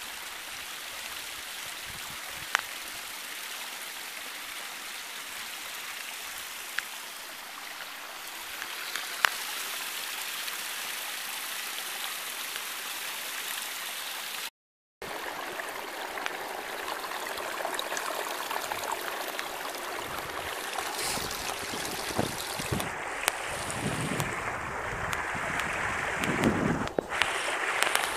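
Small mountain stream and waterfall running over rocks, a steady rushing and gurgling. It cuts out briefly about halfway, then comes back closer and louder, with a few low knocks near the end.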